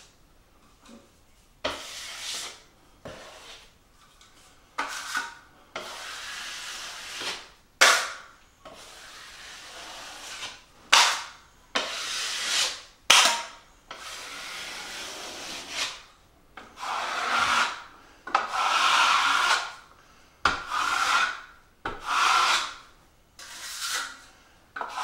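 Steel drywall taping knife scraping joint compound over a paper-taped butt joint and against the mud pan, screeding off the excess. It comes as a dozen or more separate strokes, each half a second to two seconds long, a few starting with a sharp scrape.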